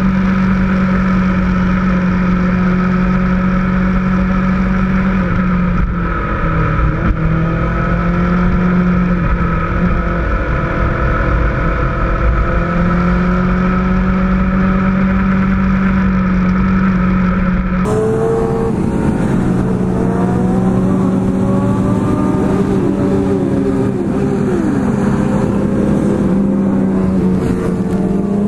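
Motorcycle engines running at road speed, a steady engine drone over low wind rumble, with rising and falling revs. About 18 seconds in the sound changes abruptly to a brighter mix with several engines revving up and down.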